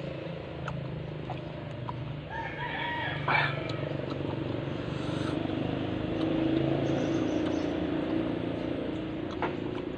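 A rooster crowing once, about two to three seconds in, over a steady low hum.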